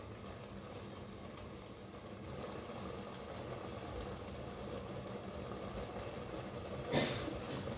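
Pot of greens simmering on a gas stove: a steady low rumble, with a short clatter of dishware about seven seconds in.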